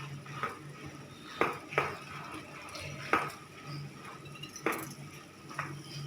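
Puffed rice being washed by hand in a vessel of water, with occasional knocks and clinks of hands and rice against the vessel, about six in all.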